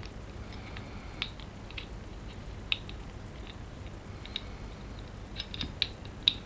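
Small, sharp clicks and taps at irregular intervals as the KJW KC-02 airsoft rifle's trigger mechanism is handled and its parts fitted, with a quick run of clicks near the end, the last one the loudest.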